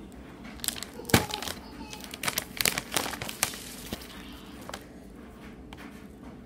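Plastic Takis Fuego chip bag crinkling and crackling as it is handled and chips are pulled out, with a string of sharp rustles over the first four seconds, the loudest about a second in.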